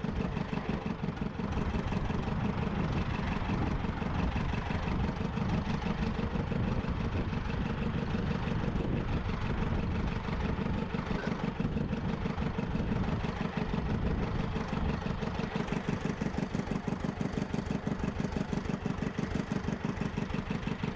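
Fishing boat's engine idling steadily, with a fast, even pulse.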